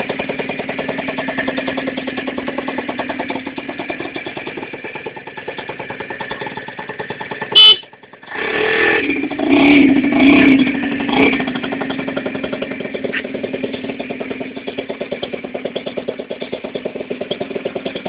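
Keeway Hurricane 50 cc two-stroke scooter engine running steadily under way, with a pulsing note. About seven and a half seconds in comes a short, loud, high blast; the engine then drops briefly and revs up louder for a few seconds before settling back to its steady running.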